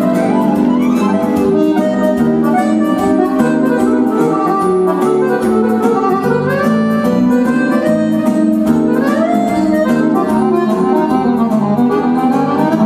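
Roland digital piano accordion playing a fast melody with quick rising runs, over Korg keyboard accompaniment with a steady beat.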